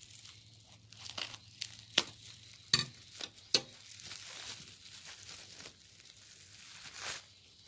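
Bubble wrap and thin plastic packaging crinkling as hands unwrap it, with a few sharp clicks around the middle and another rustle near the end.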